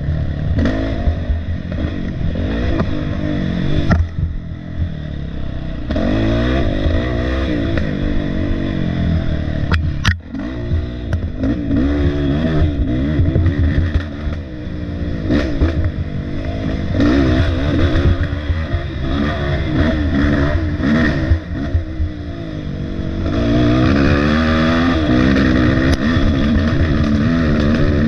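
Off-road dirt bike engine, heard close from the rider's position, revving up and down repeatedly as it is ridden hard along a wooded trail, with clatter. There is a sharp knock about ten seconds in.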